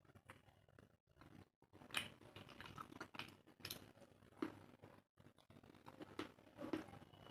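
Close-miked eating sounds: a person chewing, with irregular wet mouth smacks and small crunchy clicks, a few sharper ones standing out.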